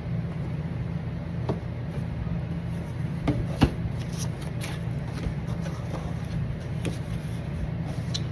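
A cardboard box and its contents being handled and opened by hand: scattered clicks and taps, the loudest about three and a half seconds in, over a steady low hum.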